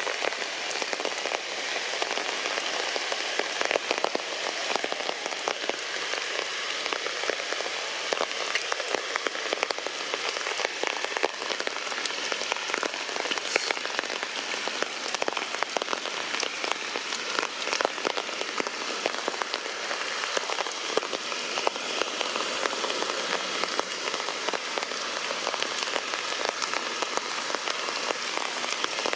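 Heavy rain falling steadily, a dense hiss filled with the patter of individual drops striking leaves and surfaces.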